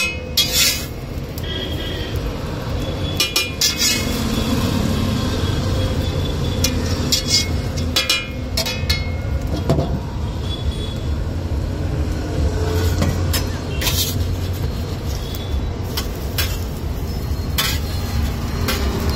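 A metal spatula scraping and clicking on a large flat iron griddle a handful of times, with a steady low rumble in the background.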